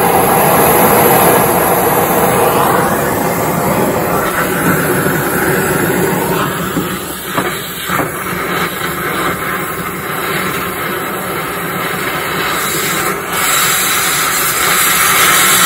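Cutting torch running with a steady loud hiss as it burns through a rusted truck-bed mounting bolt, seized because its captive nut broke loose from its weld. A couple of short sharp pops come about halfway through.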